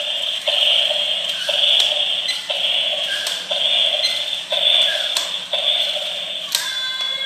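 Battery-operated walking toy dinosaur running: a buzzy, pulsing electronic noise from its small speaker and mechanism, with a click about once a second as it steps. Near the end it changes to a few steady electronic tones.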